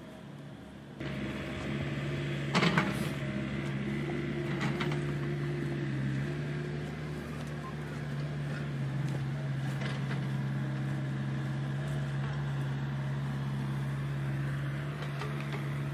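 Huina 1593 RC excavator's electric motors whirring steadily as the arm and bucket dig into soil, starting about a second in. Two brief knocks come a few seconds in.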